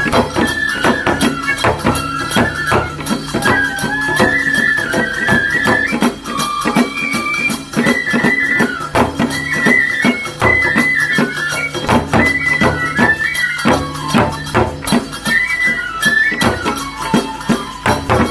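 Traditional Japanese shrine festival music: a high flute melody with sliding, held notes over fast, steady drum and metal percussion strokes.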